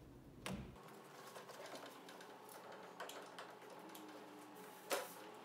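Scattered light knocks and clicks of a wall bed's back bed rail being handled and fitted against the bed frame, with the sharpest knock near the end.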